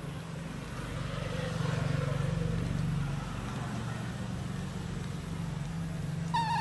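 Steady low hum of an engine running. Near the end comes a short wavering animal call.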